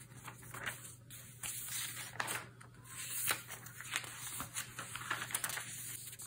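Pages of a Hobonichi Cousin planner being turned and handled: irregular soft paper rustles and light taps.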